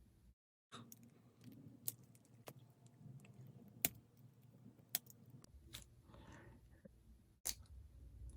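Faint, scattered small clicks and metal taps as the parts of a die-cast toy car are handled while its axles and wheels are swapped, with about six sharp ticks spread over the several seconds.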